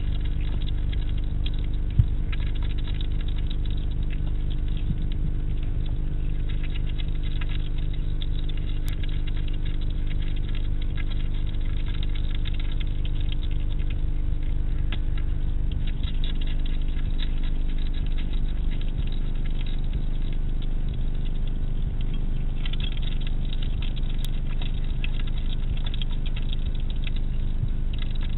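Hedgehog eating from a shallow feeding dish: irregular small crunching and clicking noises, over a steady low hum. A single sharp knock stands out about two seconds in.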